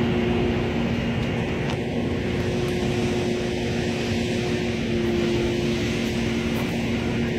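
Steady rushing roar of a wildfire burning through brush, mixed with wind, over the constant hum of an engine running.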